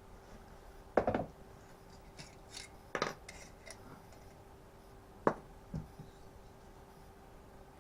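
Small metal parts and hand tools clinking and knocking against each other while a small two-stroke strimmer engine is taken apart by hand: a short clatter about a second in, another about three seconds in and two single knocks later, over a faint steady hum.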